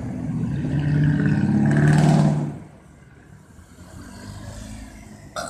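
Ambulance engine running hard as the vehicle pulls away, rising slightly in pitch and then falling away after about two and a half seconds, with a brief sharp sound near the end.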